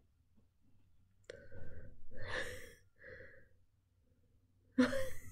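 A person's soft breathy sighs, three short ones starting a little over a second in, then a louder breath or start of a laugh near the end.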